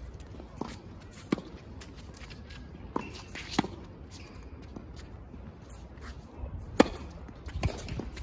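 Tennis rally on a hard court: sharp pops of the racket strings striking the ball and the ball bouncing, a few seconds apart at first and then closer together, the loudest about seven seconds in.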